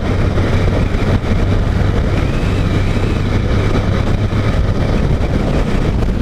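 Honda CG 150 motorcycle's single-cylinder engine running at a steady cruise while riding: a steady low hum under a rush of wind and road noise.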